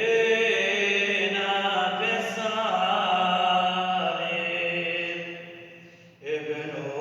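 A man's voice chanting Arabic Christian liturgical prayer, unaccompanied. One long drawn-out phrase fades away about six seconds in, and after a short breath a new phrase begins.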